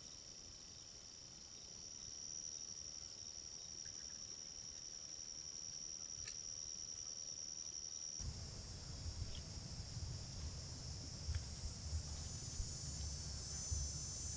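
Steady high-pitched insect chorus. About two-thirds of the way through, the audio changes abruptly to a hissier, higher insect chorus with a low rumble underneath and a few faint ticks.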